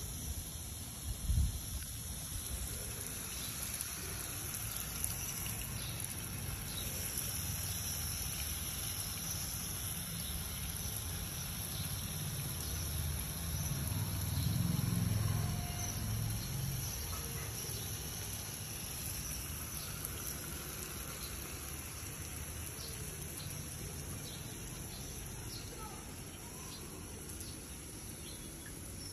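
Outdoor ambience with a steady high chirring of insects, over a low rumble on the microphone that swells around the middle, and a brief thump about a second in.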